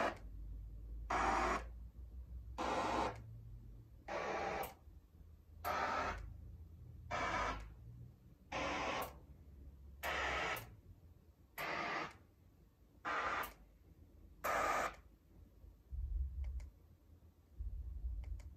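A Marantz Cinema 50 AV receiver's level-check test tone: short bursts of noise, about one every second and a half, sent to each speaker channel in turn. Near the end the tone moves to the Definitive Technology DN12 subwoofers and becomes deep rumbling bursts.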